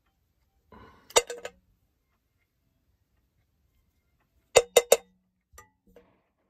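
Plastic portlight-handle parts knocked against and set down in a metal tin: a couple of clinks about a second in, then three quick clinks together a little past four seconds, followed by two softer taps.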